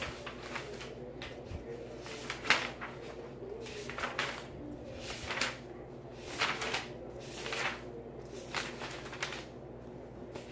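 A stack of loose paper sheets being leafed through and shuffled by hand: a series of paper rustles about once a second, with one sharper snap about two and a half seconds in, over a steady low hum.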